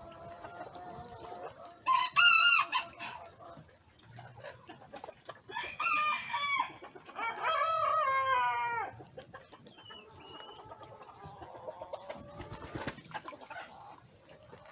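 Bantam roosters crowing three times, the first crow short and the last two nearly back to back, with hens clucking quietly underneath.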